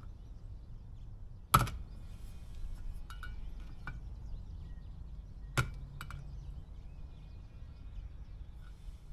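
Metal clinks from tools working the propeller nut and tab washer on a Mercury 40 hp four-stroke outboard's lower unit, with two sharp knocks about four seconds apart and a few lighter clinks between them.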